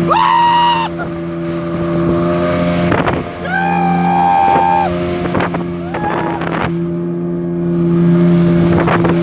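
A speedboat's engine runs steadily with a constant drone while the hull rushes through the water, and the riders let out high, held shouts of excitement at the start and about four seconds in. Near the end, wind starts buffeting the microphone.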